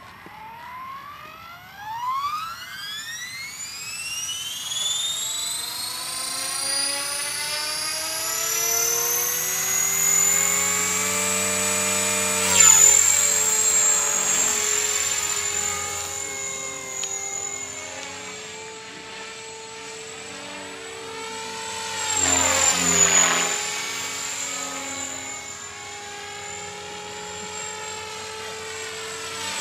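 T-Rex 500 electric RC helicopter spooling up: a high motor-and-gear whine that rises steeply in pitch over the first ten seconds or so, then holds steady as the head reaches flying speed. The whine dips briefly and swells louder about twelve seconds in and again about twenty-three seconds in.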